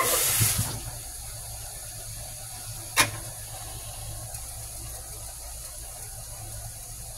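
Running water, like a kitchen tap, cuts off abruptly under a second in, followed by a single sharp click about three seconds in and then a low steady hum.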